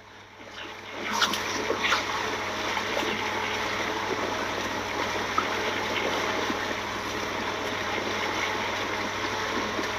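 Steady rushing and splashing of water, building up over the first second and then holding even, with a low steady hum underneath.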